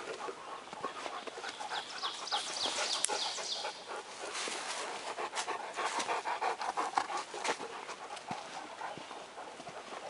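Newfoundland dog panting close by in quick, rhythmic breaths, heaviest in the middle of the stretch.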